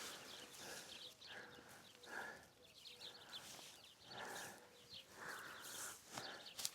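Cattle eating hay: faint, irregular rustling and crunching.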